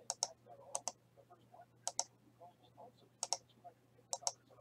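Computer mouse and keyboard clicks: about five pairs of short sharp clicks spread out across a few seconds, over a faint steady hum.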